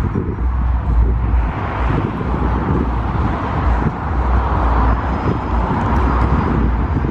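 Road traffic passing, swelling and fading in the middle, with wind buffeting the microphone in low rumbles.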